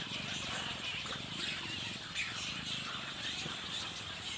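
Many birds chirping in a steady chorus of short overlapping calls, over a steady low rumble.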